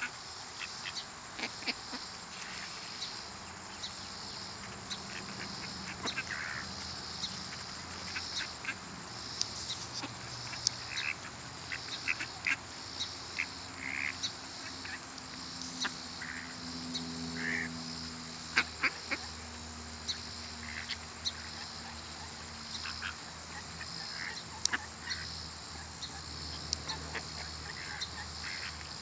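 A mixed flock of mallard ducks and Canada geese calling, with short scattered quacks and honks over a steady high hiss.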